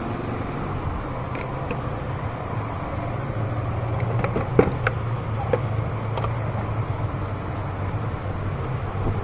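A steady low hum with a handful of light clicks and knocks, the sharpest about four and a half seconds in, as engine parts are handled and fitted back on by hand.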